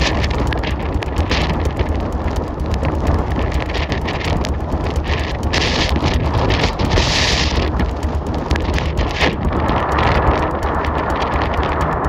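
Blizzard wind from a bomb cyclone buffeting the microphone: a heavy, unbroken low rumble under gusty hiss, with two short surges of hiss near the middle as stronger gusts hit.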